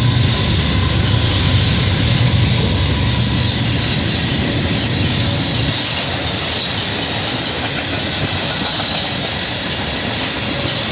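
Canadian Pacific diesel-hauled freight train passing close by. A low diesel drone from the locomotives fades after about six seconds, leaving the steady roll of freight cars over the rails.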